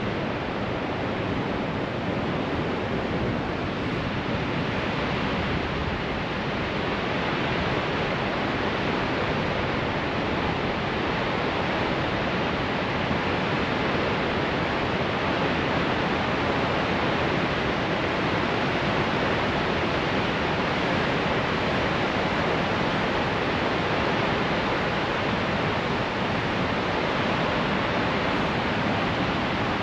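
Large river waterfall in heavy flow, an even rushing of water that grows a little louder after several seconds.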